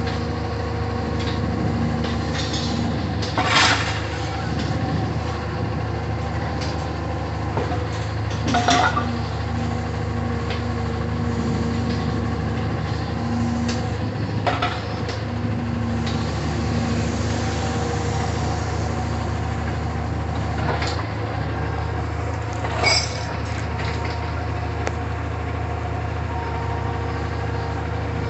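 Diesel engine of a Cat wheeled material handler running steadily while it swings its scrap magnet over a gondola car. Four loud metal clanks break through, the last one ringing, as scrap strikes metal.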